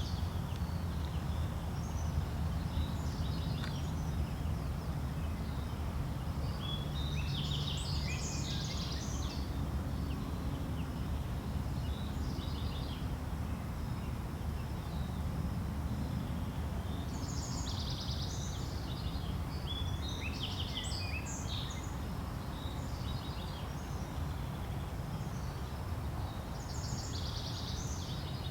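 Songbirds singing short chirping phrases every few seconds over a steady low rumble of background noise.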